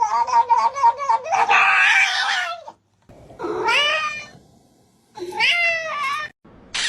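A cat vocalising: a fast warbling call for the first two and a half seconds, then two separate meows that rise and fall, the first about three and a half seconds in and the second near the end.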